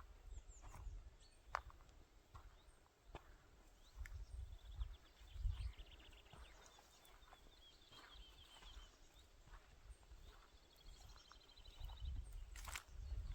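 Songbirds singing: a twittering song about four seconds in and a fast trill of rapidly repeated notes a little before the end. Low rumbles of wind on the microphone come and go, strongest near the end.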